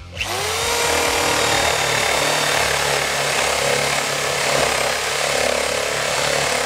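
Corded electric drill spinning up with a rising whine, then running steadily under load as it bores a hole into wood.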